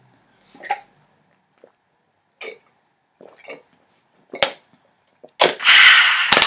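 A person drinking from a plastic water bottle in several short gulps. About five seconds in comes a loud, harsh, breathy 'aaah' from a wide-open mouth, lasting about a second.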